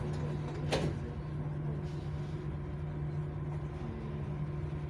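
Dubai Metro train standing at the platform with a steady low hum from its onboard equipment; about a second in, a single sharp knock as the sliding doors close.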